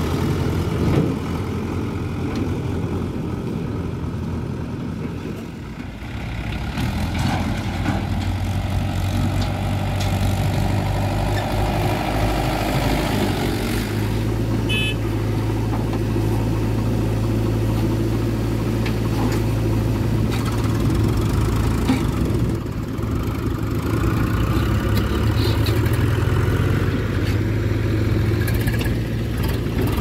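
Diesel engines of a JCB 3DX backhoe loader and a Swaraj tractor running steadily while the backhoe digs earth and loads it into a tractor trolley.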